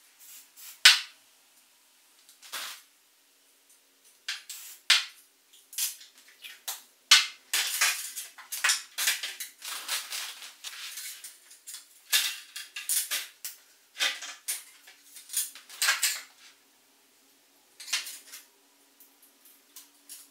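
Thin 3D-printed plastic wing and spar parts handled and set down on a table: an irregular run of sharp clicks and crackles, sparse at first and densest in the middle.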